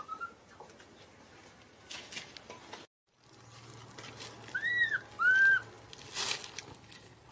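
Baby macaque calling with short, high-pitched coos: a faint chirp at the start, then two loud arching cries, each rising then falling, about half a second apart in the second half. A brief rustle follows.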